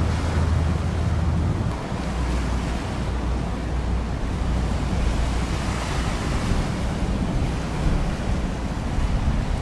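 Strong wind buffeting the microphone over the steady wash of rough, choppy sea. The low rumble of the wind shifts a little about two seconds in.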